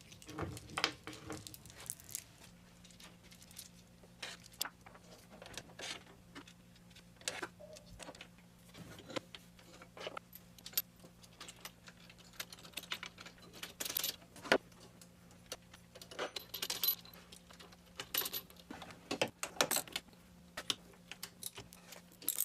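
Irregular light metal clinks and knocks of a small vise and its bolts being handled and fitted onto a mini milling machine's table. A faint steady low hum runs underneath from a couple of seconds in.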